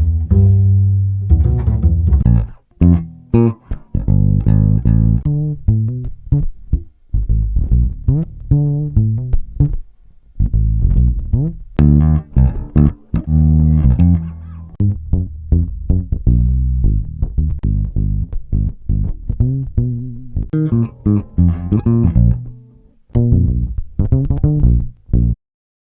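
Bass played with plucked notes: a run of short low notes changing pitch from one to the next, each struck sharply and dying away, with a few brief pauses.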